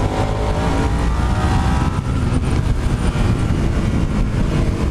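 Suzuki SV650 V-twin motorcycle engine accelerating, rising in pitch for about two seconds, then running on at road speed under heavy wind noise.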